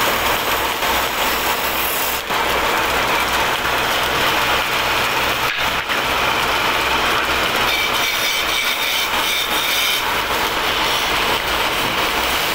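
Belt-driven wood lathe running while a hand-held chisel cuts into a spinning wooden rolling-pin blank: a steady scraping cut over the machine's running noise, with a fast low pulsing underneath.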